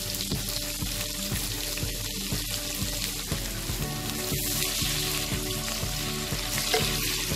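Sliced onions frying in hot mustard oil in a kadai, with a steady sizzle, stirred with a wooden spatula.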